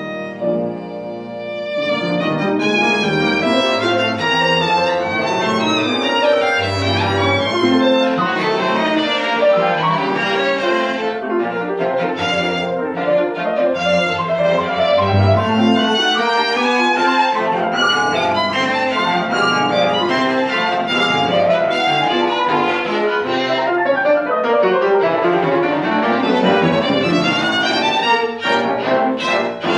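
Piano trio of violin, cello and piano playing classical chamber music together, the music growing fuller about two seconds in.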